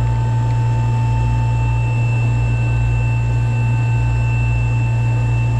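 Steady, loud machinery drone of running motors, a deep hum with a few constant whining tones above it, unchanging throughout.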